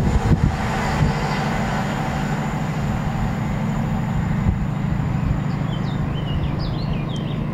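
Class 68 diesel-hauled passenger train moving away: a steady low rumble of wheels and locomotive, with a few knocks in the first second and a faint high whine. Birds chirp near the end.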